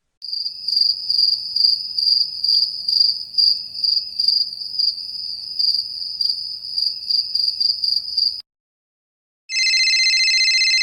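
Crickets chirping: a high, rapidly pulsing trill that stops about eight seconds in. After a short silence, a steady high electronic tone starts near the end.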